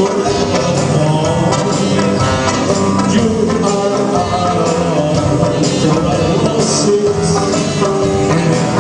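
A live band playing music, loud and continuous.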